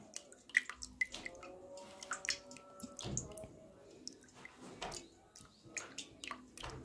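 Silicone spatula stirring a melted beeswax-and-oil lip balm mixture in a stainless steel pot: faint, irregular clicks and scrapes against the metal with soft wet squishing of the liquid.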